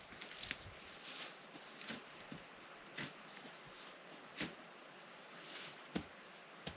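A cricket's steady high-pitched trill, with about five light, sharp knocks scattered through it.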